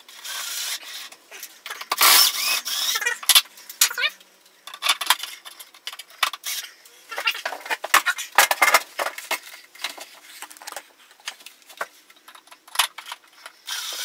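Cordless drill/driver driving drywall screws through an LED strip fixture into an OSB ceiling in short bursts, mixed with clicks and knocks of the fixture and screws being handled.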